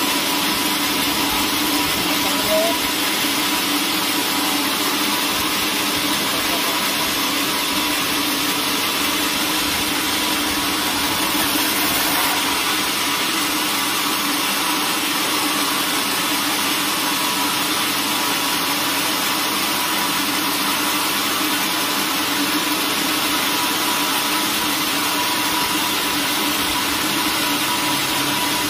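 Vertical band sawmill running steadily as its blade saws a wooden plank on the carriage: an even machine drone with a steady whine over a broad hiss.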